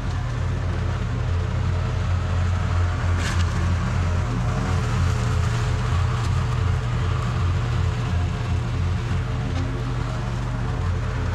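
Toro TimeCutter SS4260 zero-turn riding mower running steadily under load while mowing grass, with a single sharp click about three seconds in.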